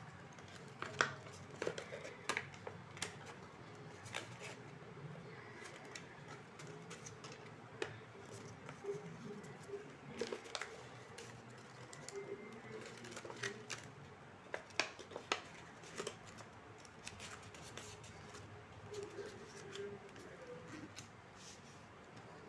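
Paper being handled and cut with scissors: scattered snips, taps and rustles.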